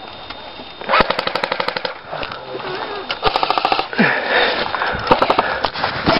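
Airsoft guns firing in full-auto bursts, a rapid clatter of about a dozen shots a second; three bursts, starting about a second in.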